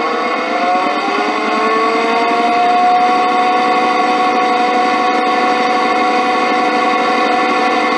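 Belt drive with ball-bearing pulleys and guide rollers running on a steel plate, heard through a piezo contact pickup: a steady metallic whirr of rolling bearings with ringing tones. The tones rise together over the first three seconds as the drive speeds up, then hold steady.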